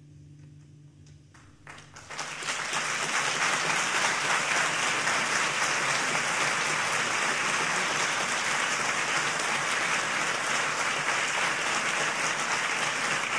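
The last low note of a classical guitar fades out. A few scattered claps come in, and about two seconds in a concert audience breaks into steady, sustained applause.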